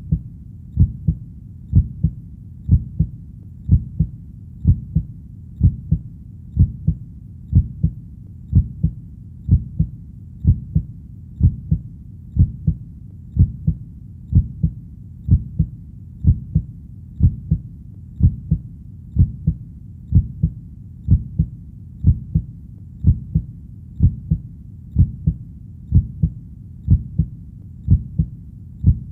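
Heartbeat: a steady lub-dub, two low thumps close together repeating about once a second, over a faint steady low background noise.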